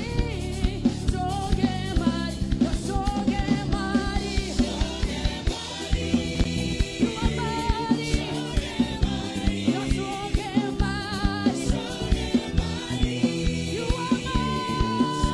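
Live gospel praise-and-worship music: a woman leads the singing into a microphone with backing singers, over a band whose drum kit keeps a steady beat.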